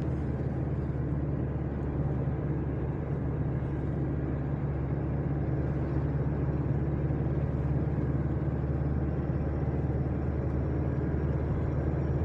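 Steady, unbroken drone of a motor vehicle on the move: low engine hum with road noise.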